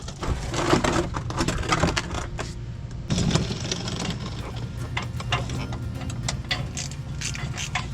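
Irregular metallic clicking and clattering of hand tools at work under a car, over a steady low hum.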